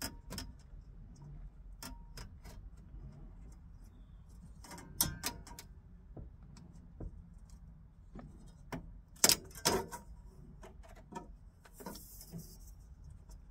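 Scattered clicks and knocks of a new window frame being pressed by hand onto the edge of a Fiat 126 Bis side-window glass and its clips, with two louder knocks a little after nine seconds and a brief scraping rustle near the end.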